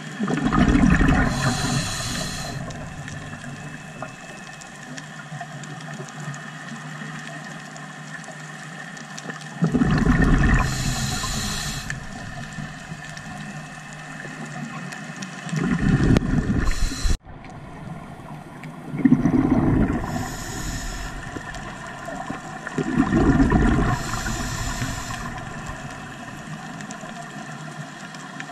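Underwater recording of a scuba diver breathing through a regulator: a hiss as the regulator delivers air on each breath in, and a burst of rumbling exhaled bubbles on each breath out, repeating every few seconds.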